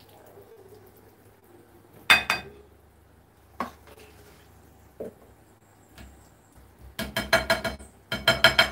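A spoon knocking and scraping against a metal pot, which rings with each strike: a few single knocks, then two quick runs of rapid clanks near the end.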